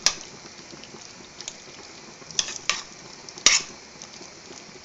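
A spoon stirring pasta and shredded cheese in a stainless steel saucepan, with about five sharp clinks and scrapes against the pan, the loudest about three and a half seconds in, over a faint steady sizzle.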